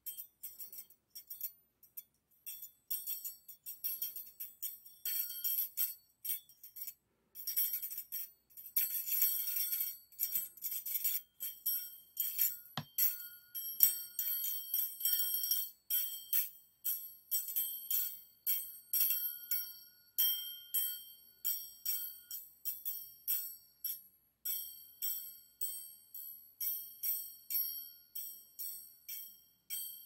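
Two stainless-steel wire mixer beaters knocked and rubbed against each other: light metallic clinks, each followed by a brief high, bell-like ringing. The clinks come in dense clusters at first and then settle into a steady tapping, with one sharper knock about 13 seconds in.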